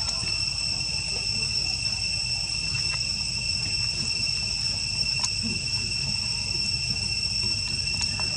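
Insects droning steadily: one unbroken high-pitched tone with overtones, with a low rumble underneath.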